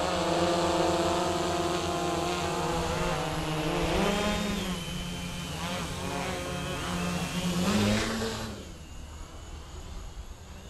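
Quadcopter's four brushless motors and 10-inch propellers humming in flight. Its pitch swoops up twice, about four and eight seconds in, as the throttle is pushed. The sound then drops away sharply about three-quarters of the way through.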